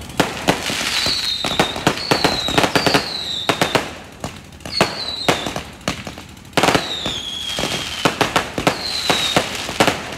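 Fireworks display: rapid bangs and crackling from bursting shells over a steady hiss, with about six short whistles that fall slightly in pitch. The firing eases off for a couple of seconds in the middle, then picks up again.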